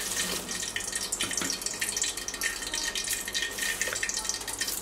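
Rice grains poured into a pot of boiling water with chopped vegetables, splashing in while the water bubbles with a steady crackling hiss.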